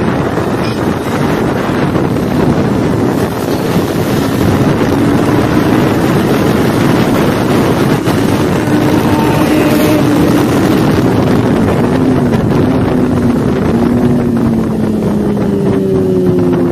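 Kawasaki Ninja 400's parallel-twin engine running at speed, heard under heavy wind noise on the microphone. The engine note comes through more clearly about a third of the way in and rises near the end as the bike accelerates.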